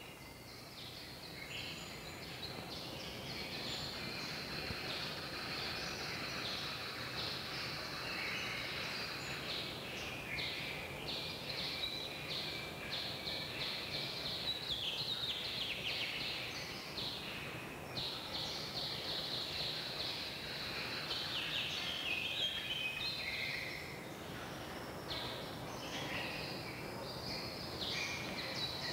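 Many small birds chirping and twittering at once, a dense unbroken chorus of short high calls over a low film-soundtrack hiss, fading in at the start.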